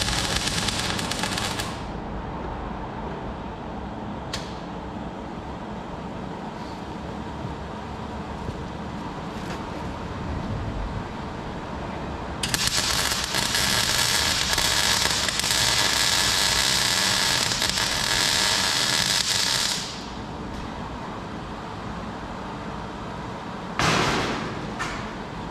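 Arc welder crackling and hissing while tack-welding a steel frame: a short weld at the start, then a longer run of about seven seconds in the middle. A brief loud burst comes near the end.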